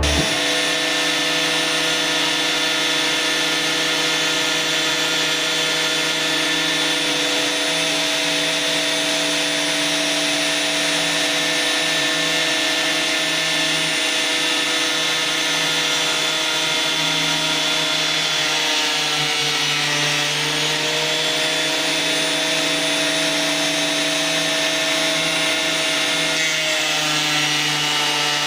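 Ryobi electric planer thicknesser running with its freshly sharpened blades, a steady high motor whine over a rushing noise. The pitch sags briefly about two-thirds of the way through and shifts again near the end.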